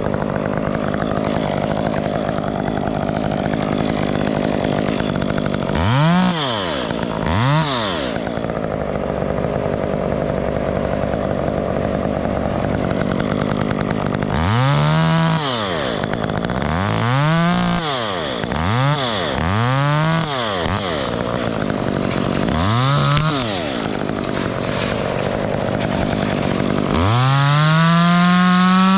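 Chainsaw running, its throttle blipped over and over so the engine note rises and falls, with a longer rev held at high pitch near the end.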